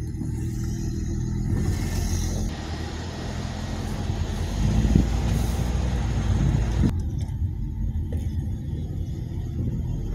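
Low engine and road rumble of a car driving slowly, heard from inside the cabin. After a cut about two and a half seconds in, it gives way to a steady outdoor hiss and rumble, which changes again to a lower rumble after another cut near the end.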